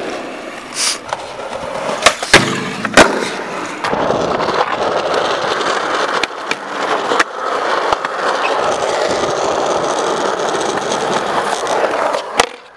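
Skateboard on concrete: a few sharp clacks of the board in the first three seconds, then the wheels rolling steadily over the concrete for most of the rest, with occasional small clicks.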